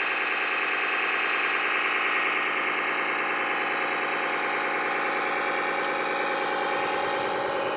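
Radio-controlled model vehicle running with a steady engine-like hum, its pitch sagging slightly near the end.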